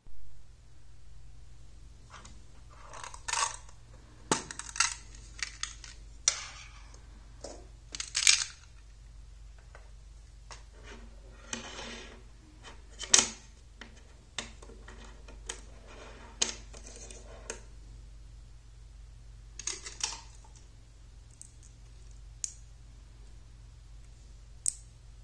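Small metal magnet rods and steel balls clicking and clinking together as they are pulled apart and snapped together by hand. The sharp metallic clicks come at irregular intervals, some in quick clusters.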